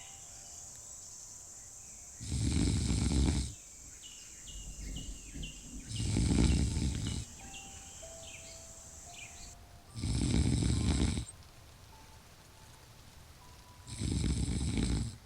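A person snoring in a slow, regular rhythm: four rough snores, each lasting just over a second, about four seconds apart.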